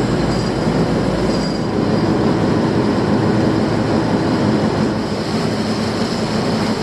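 Boat engine running steadily under way, with a continuous rushing noise of the craft moving.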